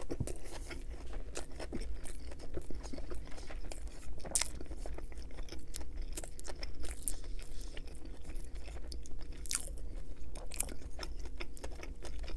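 Close-miked chewing of a mouthful of beef teriyaki sushi roll, with many small sharp, uneven mouth clicks.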